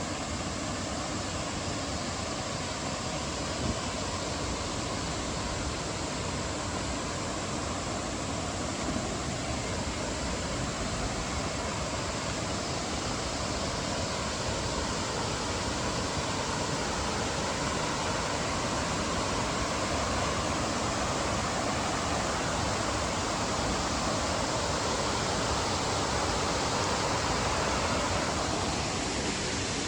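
Steady rush of fast-flowing mountain water, a jungle stream or waterfall, growing gradually louder and then easing off slightly near the end.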